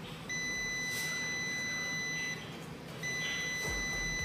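UNI-T UT61E+ multimeter's continuity beeper giving a steady high beep for about two seconds, stopping, then beeping again about three seconds in. Each beep signals continuity: the probes are across a near-zero-resistance path, which the meter reads as 0.06.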